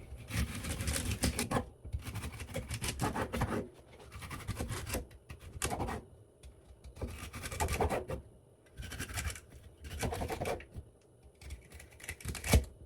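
Kitchen knife chopping celery stalks on a cutting board: about eight bursts of quick cuts with short pauses between, and a louder knock near the end.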